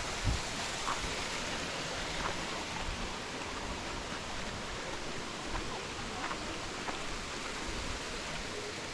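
Steady rushing of water, an even hiss, with a few faint ticks and splashes scattered through it.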